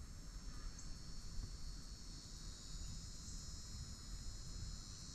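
A steady, high insect chorus, with wind rumbling on the microphone underneath.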